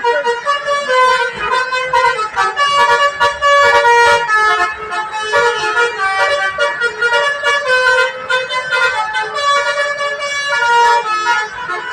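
Basuri telolet bus horns playing tunes, several at once: a quick run of changing musical honks, with overlapping melodies going on without a break.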